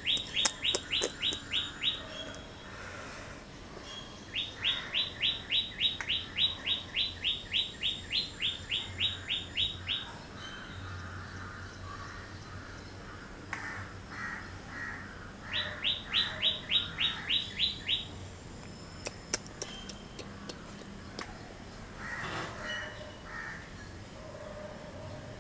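A bird singing: runs of short, falling notes, about four a second, repeated three times (briefly near the start, for about six seconds from around four seconds in, and again briefly later), with softer chirps between.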